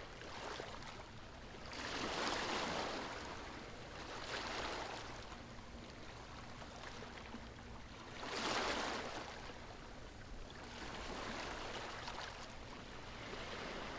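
Ocean waves washing ashore, swelling and fading every few seconds, the biggest wash about eight and a half seconds in.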